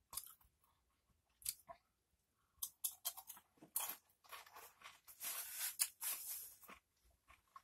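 Crunching and chewing Doritos tortilla chips dipped in cheese dip: sharp, crackly crunches, scattered at first, then a dense run of loud crunching about five to seven seconds in.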